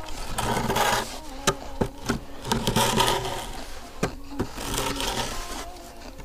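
Wooden screed board dragged across loose sand bedding to level it: three scraping strokes, with a few sharp knocks in between.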